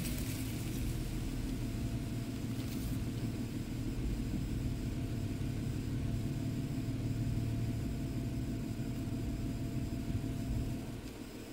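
Toyota 4Runner's 4.0-litre V6 running steadily at low revs, heard from inside the cab, with a thin steady whine over the low drone. Both fall away about a second before the end.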